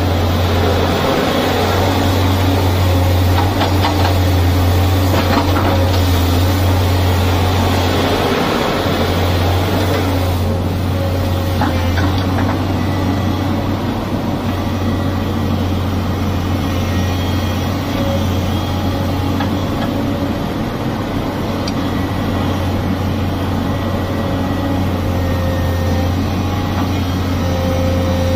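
Tata Hitachi hydraulic excavator's diesel engine running steadily with a deep, constant drone while the machine swings and digs into sand.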